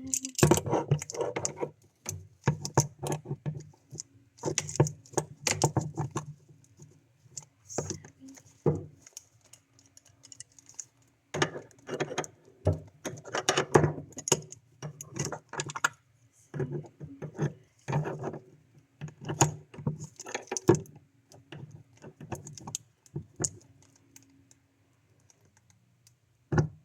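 Irregular metallic clicking and clinking of tools and fittings being handled, in short clusters with pauses between them.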